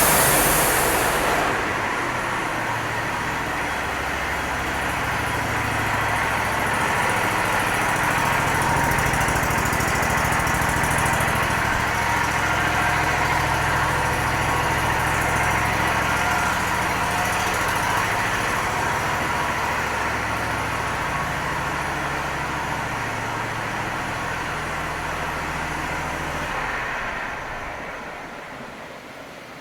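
An engine running steadily, its pitch shifting a few times, then dying away near the end.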